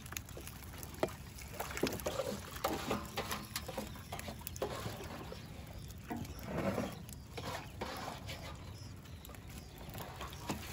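Live fish flapping and slapping with water splashing and dripping as a fish trap is emptied, heard as irregular taps and slaps.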